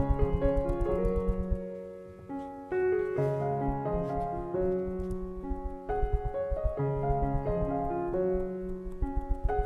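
Instrumental background music led by a piano melody, with a brief quieter spot about two seconds in.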